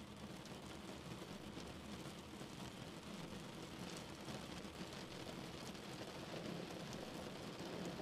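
Rain hitting a car's windscreen and roof, heard from inside the cabin while driving on a wet road, over a steady low hum of engine and tyres. Faint individual drop ticks sound through the rain noise.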